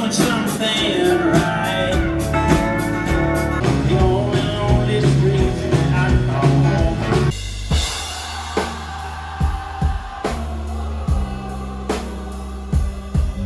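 Music with singing, drums and guitar; the music changes abruptly to a different passage about seven seconds in.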